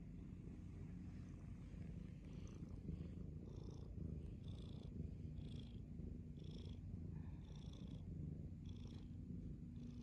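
Domestic cat purring steadily, close to the microphone, with a faint breathy hiss recurring about once a second.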